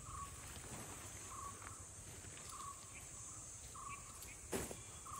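Steady high-pitched insect chorus of crickets or cicadas, with a bird's short call repeating about once a second. A single sharp knock a little over four seconds in.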